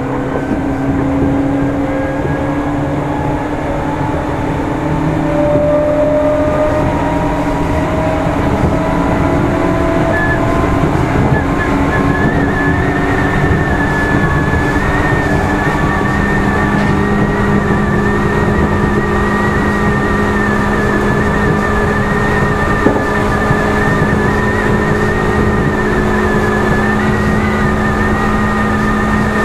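Meitetsu 6800 series electric train running, heard from inside motor car Mo 6923: traction motor and gear whine with a steady rumble. Its tones rise slowly as the train gathers speed over the first several seconds, then a steady high whine joins about twelve seconds in as it runs on at speed.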